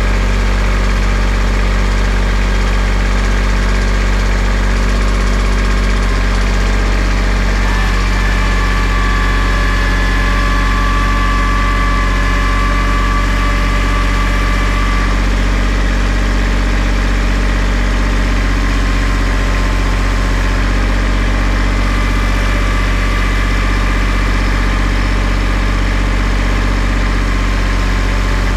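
Kubota L3800 tractor's three-cylinder diesel engine running steadily at idle. A faint thin whine comes in for several seconds in the middle.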